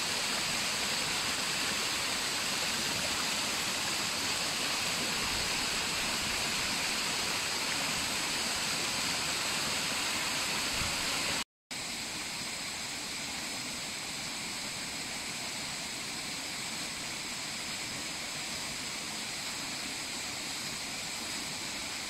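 Waterfall pouring over a rock face into a pool, a steady rush of falling water. Just before halfway it breaks off for a split second, then carries on a little quieter.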